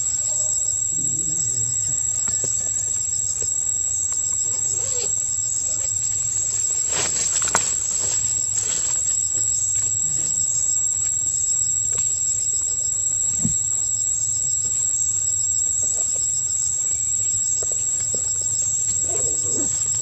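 Steady high-pitched insect drone, with a few brief clicks or rustles about seven seconds in.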